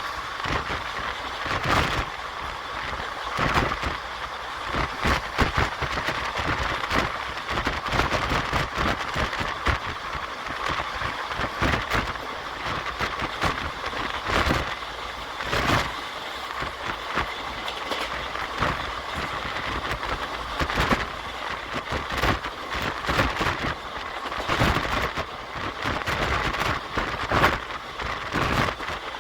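Indian Railways express train running, heard from inside a passenger coach: a steady rushing rumble with frequent irregular clicks and knocks from the wheels over the track.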